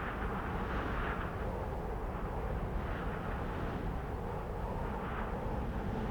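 Cold wind blowing: a steady rushing noise with soft gusts swelling every second or two.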